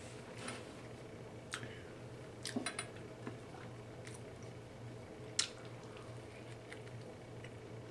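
Close-up mouth sounds of someone eating a sandwich: wet chewing with scattered sharp lip-smacks and clicks, a quick cluster about two and a half seconds in and the sharpest one a little past five seconds, over a steady low hum.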